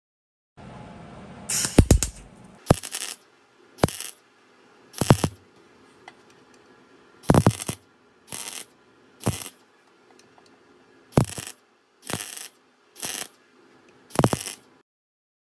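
MIG welder laying a series of short tack welds on steel: about a dozen brief, loud spells of arc noise roughly a second apart, with a low hum between them.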